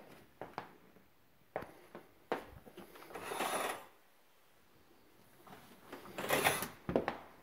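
A few knocks and footsteps, then a closet door moved twice, each time with a short scraping rush under a second long.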